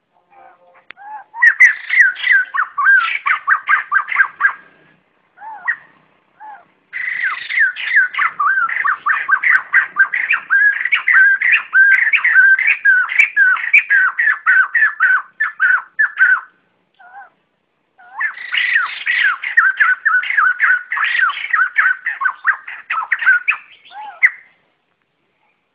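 White-crested laughingthrush giving its loud flock-gathering call: long runs of rapid, repeated whistled notes that bend up and down in pitch, in three bouts with a few single notes in the gaps between.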